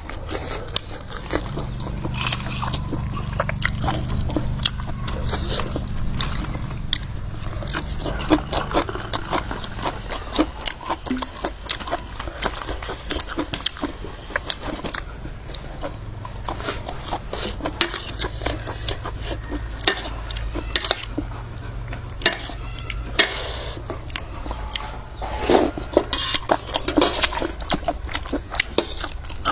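Utensils clinking and scraping on dishes, with chewing, as people eat a spicy seafood papaya salad. A low steady hum runs underneath for the first ten seconds or so and again through much of the second half.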